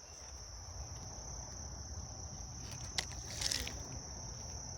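Crickets trilling steadily, high-pitched, over a low rumble, with a sharp click about three seconds in and a short rustle just after it.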